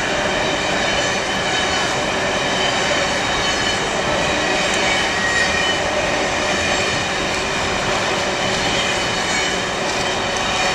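Amtrak Regional train's coaches passing at speed close by: a steady loud rush of steel wheels on rail with thin high-pitched tones over it. The sound eases slightly near the end as the last car goes by.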